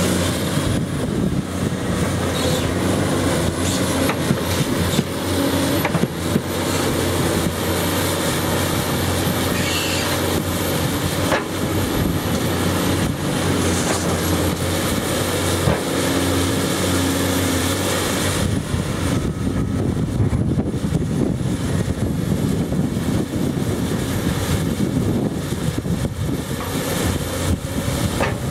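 Hyundai R290LC-9 crawler excavator working a coal pile: its diesel engine runs steadily under load with the hydraulics, and there are a few sharp knocks as the coaling bucket digs into the coal.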